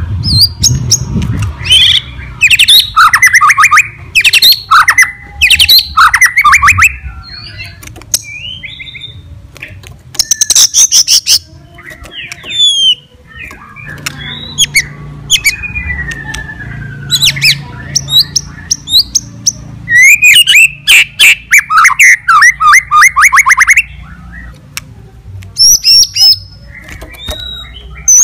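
White-rumped shama (murai batu) in full, vigorous song. It sings loud, fast rattling trills and sharp repeated notes mixed with slurred whistles, with the densest rattling bursts a few seconds in and again about twenty seconds in.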